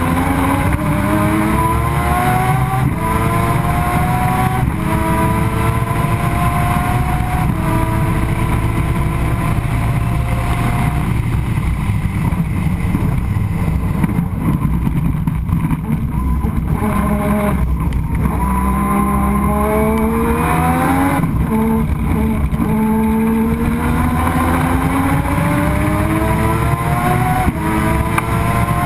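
Turbocharged triple-rotor 20B rotary engine of a Mazda RX-7 race car at full throttle, its note rising and dropping back through several quick upshifts, then easing off about halfway through before pulling up through the gears again. It is running on reduced boost, about 8 psi instead of 15, after losing boost.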